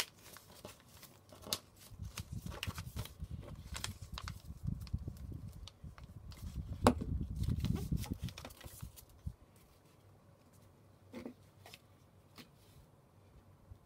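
White paper rustling and being folded and pressed by hand on a desktop, with a glue stick rubbed over the folded paper and scattered sharp clicks and knocks, the loudest about seven seconds in. After about nine seconds it quietens to a couple of faint clicks.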